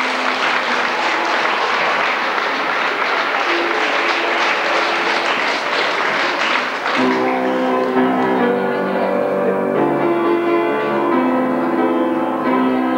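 Audience applauding over instrumental music; the applause stops about seven seconds in and the music plays on with sustained chords.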